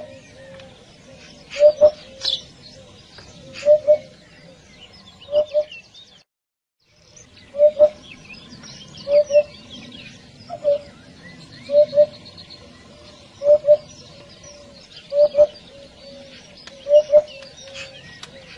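Eurasian hoopoe giving its low, hollow "oop-oop" call: short two-note phrases repeated about every second and a half to two seconds. Fainter high chirps from other birds sound behind it, and there is a short silent break about six seconds in.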